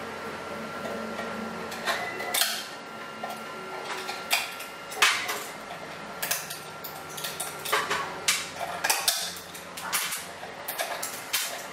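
Metal tools and small parts knocking and clinking against a stainless steel tray, a string of irregular sharp clinks, loudest about two and a half and five seconds in.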